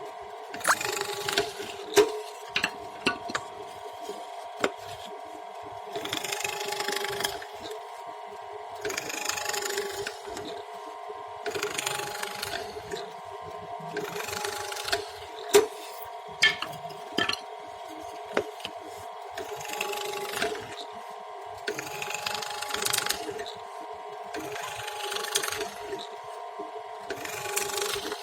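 Wood being worked with a hand tool: about eight separate rasping strokes, each around a second long and a few seconds apart, with sharp taps and knocks in between. A steady hum lies underneath.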